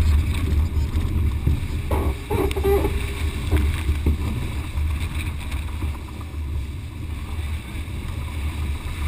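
Strong wind buffeting the camera's microphone over the rush of water and spray along a racing yacht planing at speed in about 30 knots of wind. A voice calls out briefly about two seconds in.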